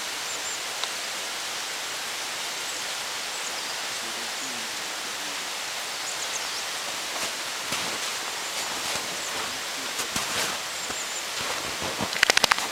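Dachshund digging and pushing through a snowbank: snow crunching and rustling over a steady hiss, the crunches growing busier after about seven seconds and ending in a quick run of loud, sharp crunches near the end.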